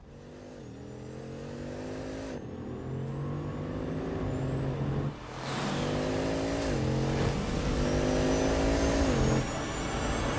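Bugatti Chiron's quad-turbocharged W16 engine accelerating hard. Its pitch climbs and falls back at each of about five upshifts, and it grows louder as the car gathers speed.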